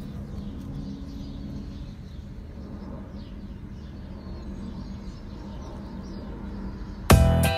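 Outdoor background: a steady low rumble with faint high bird-like chirps now and then. Loud music cuts in suddenly near the end.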